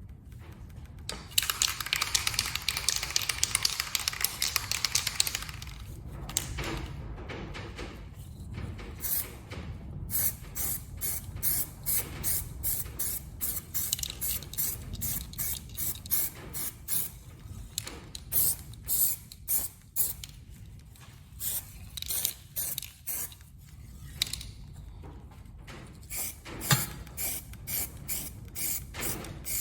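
Aerosol spray-paint can spraying: one long hiss of about four seconds starting about a second in, then a long run of short, quick bursts, two or three a second, as the coat goes on in passes.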